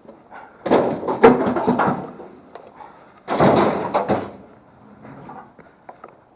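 Scrap being loaded: two loud clattering crashes about three seconds apart, each made of several sharp bangs.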